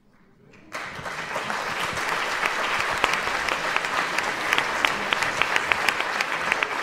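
Audience applauding, starting suddenly about a second in after a moment's quiet, a dense patter of many hands clapping.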